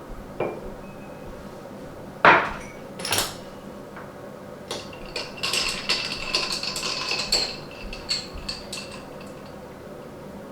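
Ceramic cups and a metal spoon clinking while coffee is made: a few separate knocks, the loudest about two seconds in, then about four seconds of quick, ringing clinks such as a spoon stirring in a mug.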